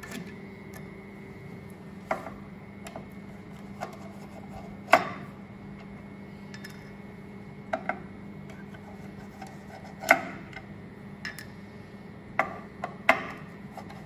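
Irregular metallic clicks and clinks of a screwdriver unscrewing grease caps from the stainless steel platen of a Garland MWE3 grill, with the occasional louder knock, over a faint steady hum.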